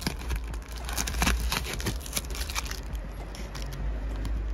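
Brown tape peeled from around a freshly glued hot-tub patch crinkling and crackling as it is handled and crumpled, with a steady low rumble underneath. The crackles thin out after about three seconds.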